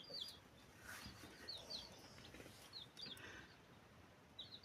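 Faint bird chirping: short, high, falling chirps in little groups of two or three, repeated every second or so.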